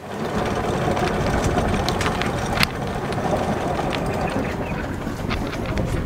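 Sailboat's engine running steadily while motoring under way, with a few light clicks.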